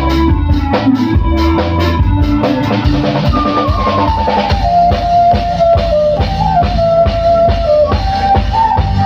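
Live band playing an instrumental passage of a song: a drum kit keeping a steady beat with bass drum and snare, a bass line underneath, and an electronic keyboard melody that steps downward from about three seconds in.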